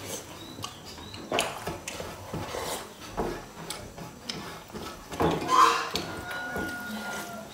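Close-up eating sounds: chewing and lip-smacking, slurping as dal is drunk from a steel bowl, and scattered clinks of the steel bowl and brass plates. The loudest noise comes about five and a half seconds in, followed by a faint ringing tone lasting about a second and a half.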